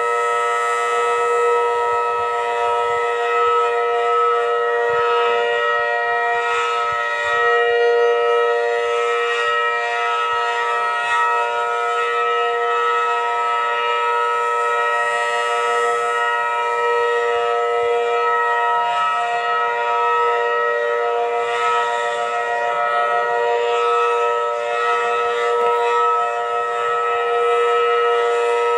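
Federal Signal outdoor warning siren sounding a steady alert tone: several pitches held together as one chord, running without a break and wavering slightly in loudness.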